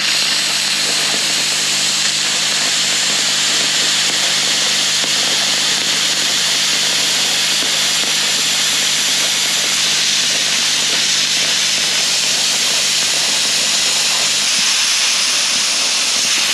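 YesWelder CT2050 plasma cutter, running off its built-in compressor, cutting a disc out of aluminium sheet: a loud, steady hiss of the plasma arc and air jet, with a faint low hum underneath that fades out a couple of seconds before the end.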